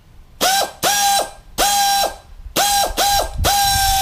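Pneumatic air ratchet run free in short trigger bursts, about six in a row, each a whine that spins up quickly, holds steady and winds down when the trigger is let go; the last burst is the longest.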